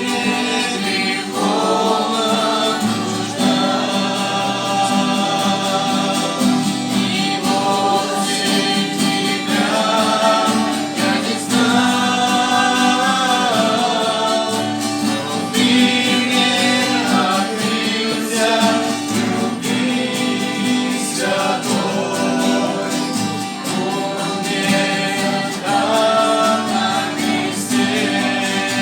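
Background music: a song sung by several voices over guitar accompaniment.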